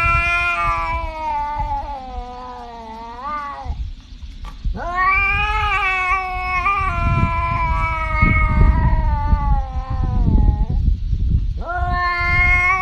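A cat yowling in long, drawn-out wavering calls. Two calls of several seconds each are followed by a third that starts near the end.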